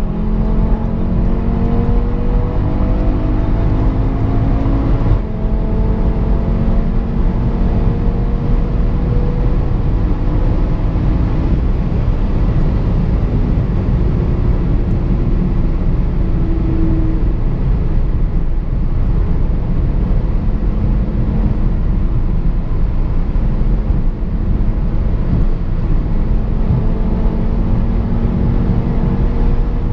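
MTM-tuned Audi RS3 R's turbocharged 2.5-litre five-cylinder engine pulling at Autobahn speed, heard inside the cabin: the engine note climbs slowly over the first ten seconds, then sinks into steady road and wind noise, and climbs again near the end.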